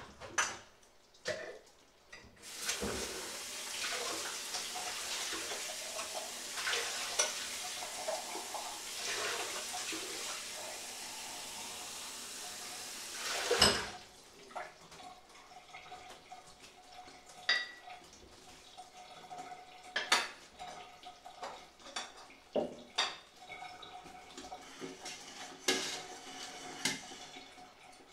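Kitchen tap running into a sink for about eleven seconds, with clinks of dishes, stopping with a sharp knock. Scattered clinks and knocks of utensils and pots follow.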